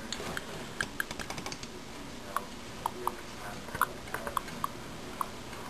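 Typing on a computer keyboard: scattered, irregular key clicks.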